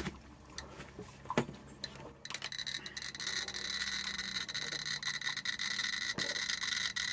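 GQ GMC-320 Plus Geiger counter being set down on plastic spacers on a uranium-glazed plate with a few light knocks. It then gives sparse, irregular clicks as it starts counting radiation from the glaze, its rate still low and climbing. A steady high hiss comes in about two seconds in and runs under the clicks.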